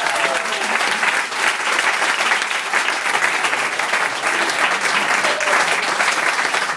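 Audience applauding: dense, steady clapping from a room full of people, with a few voices mixed in.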